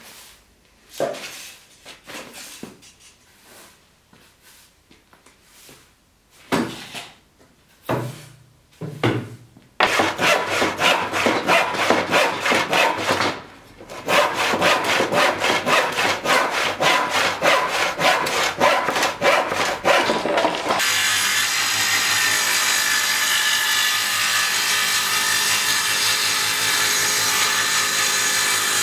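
A push broom sweeping sawdust in scattered strokes, then a handsaw cutting through a wooden board in fast, even strokes with a brief pause partway. About twenty-one seconds in, a woodworking planer comes in and runs steadily and loudly.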